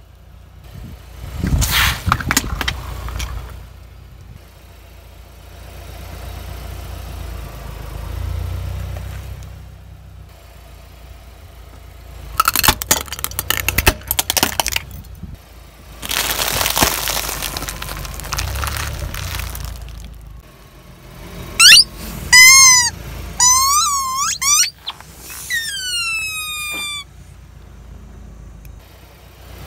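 A car tyre rolling slowly over plastic toys on asphalt, crushing them with bursts of cracking and crunching, with a low engine rumble between. Near the end, rubber squeeze toys squeak loudly several times as they are pressed, ending in a few falling squeals.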